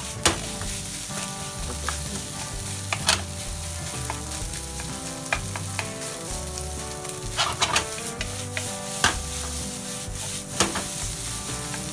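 Rice and egg sizzling as they are stir-fried for fried rice in a hot oiled frying pan, with a wooden spatula scraping and clacking on the pan as it is pushed and tossed. A few sharp knocks stand out over the steady sizzle.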